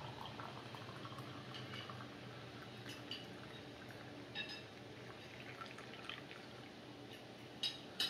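Brewed coffee poured from a glass carafe into a mug: a faint steady trickling stream, with a few light clinks, the clearest about halfway through and near the end.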